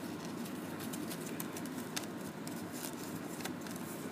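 Origami paper rustling and crinkling in the hands as it is folded, with a few short crackles over a steady low background hum.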